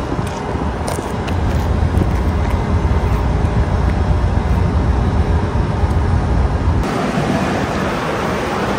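Steady low outdoor rumble, with wind on the microphone. About seven seconds in it gives way to a steadier airy hiss.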